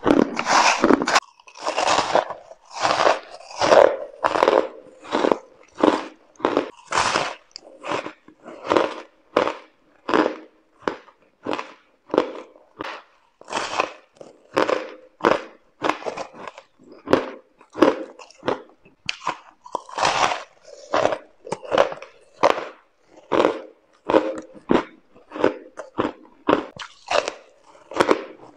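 Crunchy frozen "carbonate" ice being bitten and chewed right at the microphone: a steady run of crisp crunches, more than one a second.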